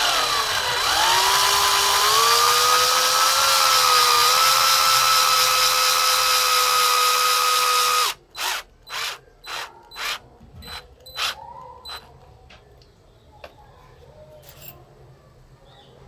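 Cordless drill driving a long screw into a wooden plank. The motor whine dips in pitch as it starts under load, then rises a little and holds steady for about eight seconds before stopping suddenly. It is followed by a run of short trigger bursts, about two a second.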